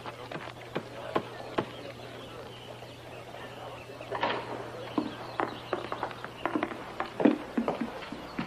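Footsteps and small knocks of people walking into a room, sparse at first and thicker from about halfway, over a steady low hum from the old film soundtrack.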